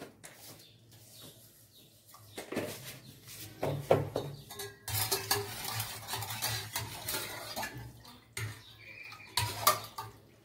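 Metal spoon clinking and scraping in a small stainless-steel pot while stirring the liquid garlic-and-vinegar dakka: sharp clinks about 2.5 and 4 seconds in, steady stirring and scraping from about 5 to 8 seconds, and a couple more clinks near the end.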